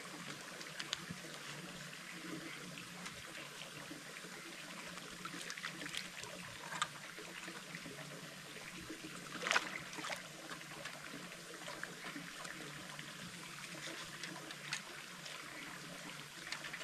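Steady trickle of running water, with scattered small clicks and knocks and one sharper click about nine and a half seconds in.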